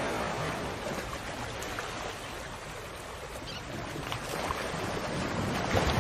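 Sea water sloshing and rushing around a boat, an even noise with no engine note, mixed with wind.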